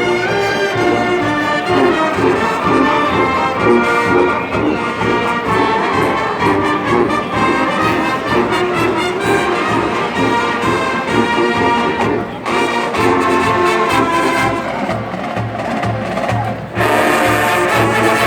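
Marching band brass playing a full-ensemble tune with held and moving notes. Near the end it dips for a moment and comes back louder and brighter.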